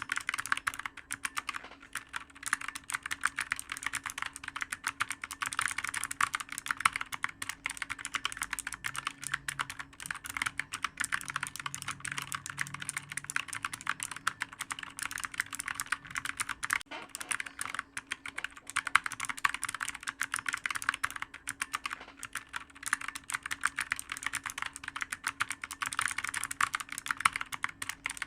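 Continuous fast typing on a computer keyboard: a dense, unbroken stream of key clicks.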